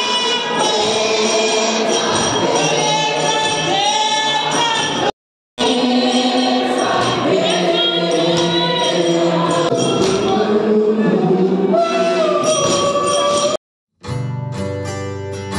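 Church congregation singing a gospel worship song together, cut off twice by a brief dead silence. In the last second or so, strummed acoustic-guitar music takes over.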